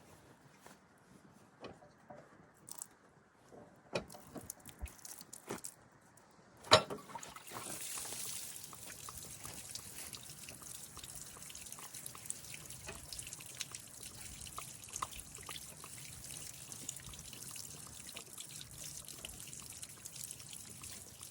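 Scattered small metal clicks of tools, then a sharp clank about six and a half seconds in, after which coolant, mostly water, starts running out of the skid steer's cooling system in a steady trickle and splash that continues to the end.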